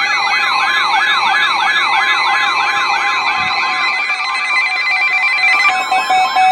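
Weather alert radio siren: an electronic wail sweeping rapidly up and down, about three times a second, over steady alert tones, with a pulsing beep joining near the end. It sounds as a new weather warning comes in.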